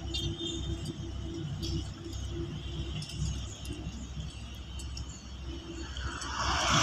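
Heavy asphalt-paving machinery, a road roller and paver, running at a distance: a low, steady engine rumble with a faint high buzz above it.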